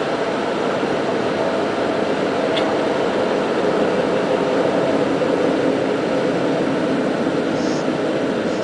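Passenger train running, heard from inside the compartment as a steady running noise, with a brief high squeak near the end.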